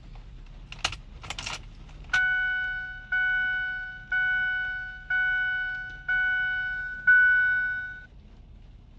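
A brief rattle, then the 2008 Ford F-250's dashboard warning chime sounds six times, about once a second, each tone fading away before the next.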